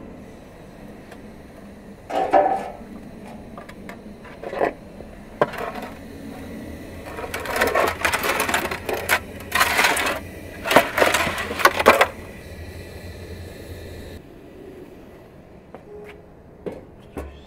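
Metal baking tray and oven lid being handled in a gas-fired brick oven: a few knocks of metal on stone, then a run of loud scraping and clattering as the tray is slid and shifted across the oven's stone floor.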